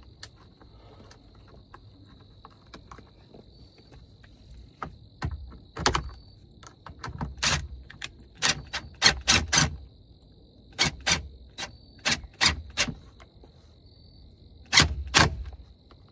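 Sharp clicks and knocks from fitting a plastic LED dome light fixture and driving its screw, coming in irregular clusters, densest through the middle and again near the end. A steady high cricket trill runs underneath.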